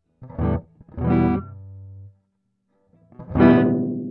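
Electric guitar played through a Mushroom Echo pedal: two short plucked notes about a second apart, then after a pause a third note that rings out and slowly fades.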